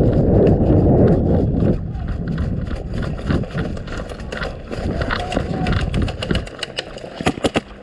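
Heavy rustling and handling noise as an airsoft player moves with the camera, with scattered footstep-like clicks. Near the end comes a quick string of four or five sharp snaps.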